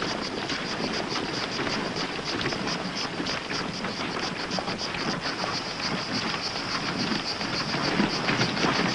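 Steady rushing outdoor noise from an old film soundtrack, with a fast, even high-pitched pulsing several times a second.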